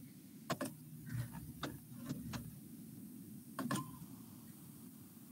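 About half a dozen faint, sharp clicks at irregular intervals from a computer's mouse and keys being worked, over a low steady hum.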